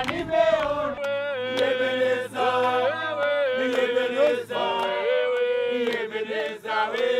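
A group of Kilimanjaro porters and a guide singing together in chorus, led by one voice and clapping hands in time: a welcome song for trekkers arriving in camp.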